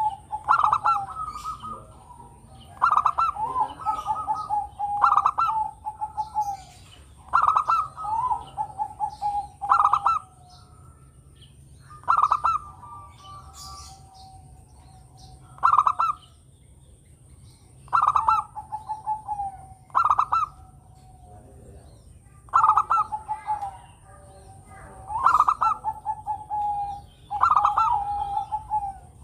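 Zebra dove (perkutut, local Javanese type) cooing its song over and over: each phrase a quick stuttering run of notes ending in a longer held coo, repeated many times with short pauses between.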